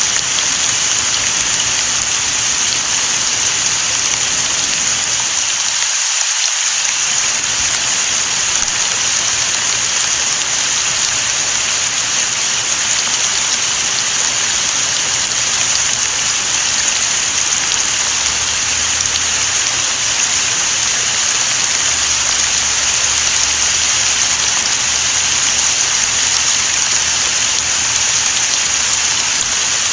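Steady rain falling, a dense, even hiss with no break.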